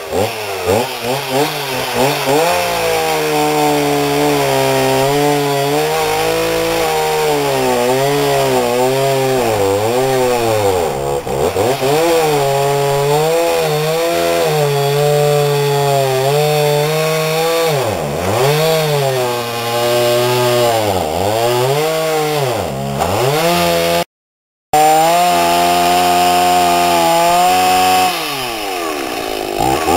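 Two-stroke chainsaw cutting into a dead tree, its engine pitch repeatedly dipping and climbing as the chain bogs in the wood and revs back up. The sound breaks off briefly near the end, then the saw runs on at a higher steady pitch.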